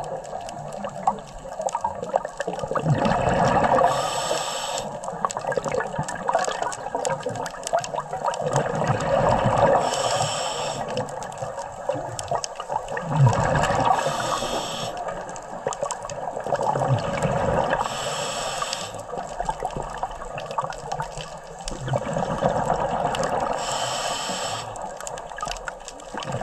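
A scuba diver breathing underwater through an open-circuit regulator: a short hiss of inhalation about every four to six seconds, each followed by several seconds of bubbling exhalation.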